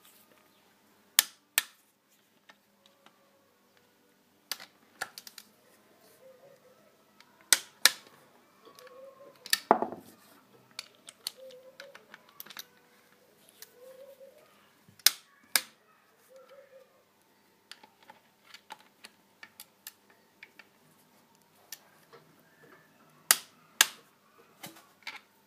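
A torque wrench clicks sharply as cylinder barrel bolts are torqued in sequence. The clicks come mostly in pairs a few seconds apart, with a heavier knock near the middle, each click marking a bolt reaching its set torque.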